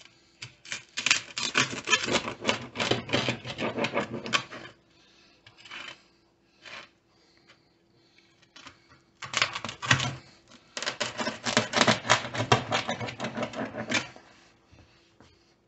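A rolling pizza cutter wheel worked back and forth through a cheese pizza on a baking pan, crunching through the crust and rasping against the pan. It comes as two spells of rapid clicking and scraping, the second starting about nine seconds in.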